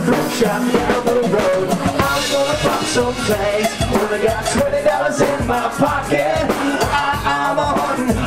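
Music with a drum kit keeping an even beat.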